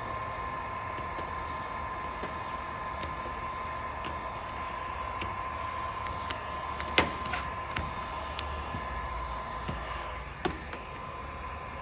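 Cordless heat gun running steadily, its fan motor giving a constant whine as it blows hot air onto the vinyl wrap. A few sharp clicks break in, the loudest about seven seconds in.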